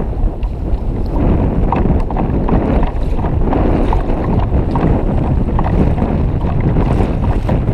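Strong wind buffeting the microphone in a steady low rumble, over choppy sea water splashing against a kayak.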